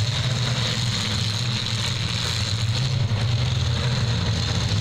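Engines of several demolition derby cars running together in the arena, a steady low rumble with no distinct crash.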